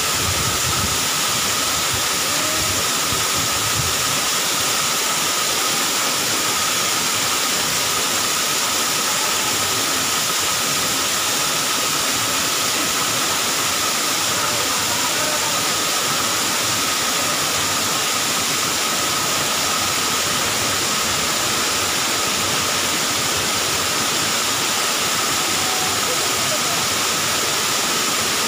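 Small waterfall pouring down a rock face into a shallow pool, a steady, even rush of falling and splashing water.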